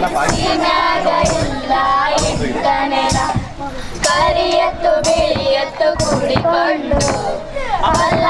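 Children singing a song to music.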